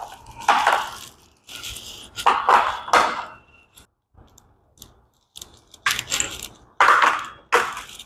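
Lenovo V14 G3 laptop's plastic bottom cover being pried off with a plastic pry tool: a string of short snapping and scraping sounds as the cover's clips pop loose along its edge, the loudest a little past the middle.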